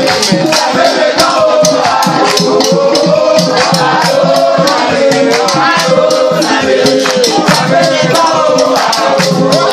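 Loud music of voices singing together, with shaker rattles keeping a fast, steady beat.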